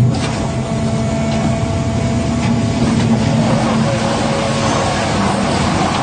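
Concrete mixer pump running steadily with a hum while its rotating drum discharges concrete into the pump hopper. The noise thickens about halfway through as the wet concrete begins sliding out.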